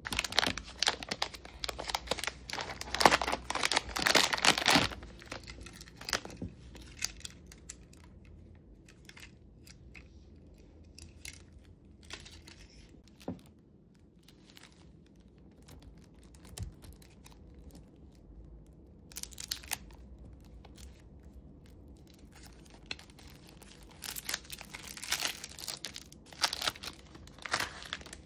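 Gift packaging being torn open and crumpled in irregular bursts of rustling and ripping, loudest in the first five seconds, sparse in the middle, and busy again near the end.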